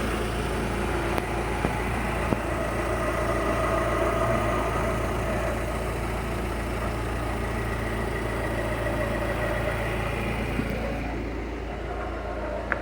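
Fiat Uno's engine idling steadily, a constant low hum with faint steady tones above it.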